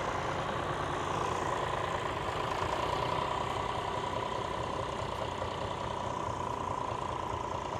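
Vintage John Deere tractor engine running steadily, with a thin steady high tone over it.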